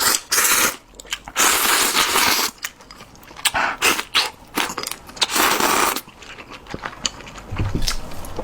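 Close-up eating sounds from a bowl of seafood ramen: noodles with kimchi and broth slurped in about four long draws, with chewing and crunching between them.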